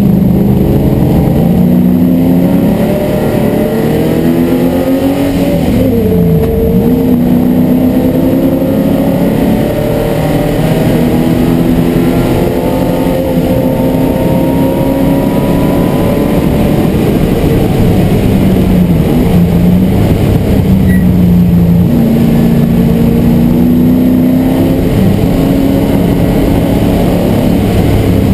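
MGB GT V8 race car's Rover V8 engine heard from inside the cabin, running hard on track. The engine note climbs slowly under power, drops sharply and recovers about six seconds in and again around two-thirds of the way through, and falls away at the very end.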